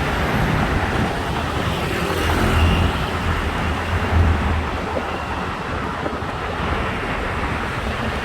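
Steady road traffic noise, engines and tyres, with a low rumble that swells about two and a half and four seconds in.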